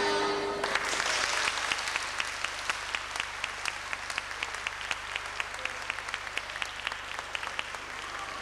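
A sustained zampogna bagpipe drone cuts off about half a second in, and the audience breaks into applause that goes on and slowly thins toward the end.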